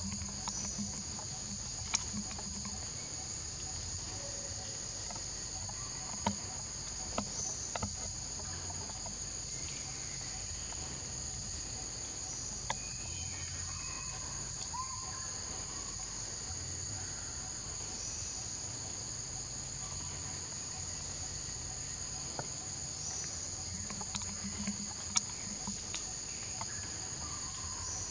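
Steady high-pitched insect chorus, an unbroken drone on two high pitches, with a few sharp clicks and some short faint chirps scattered through it.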